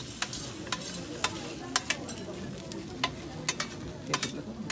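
Escamoles (ant larvae) frying with a steady sizzle in a stainless steel pan while a spoon stirs them, with sharp, irregular clicks about ten times.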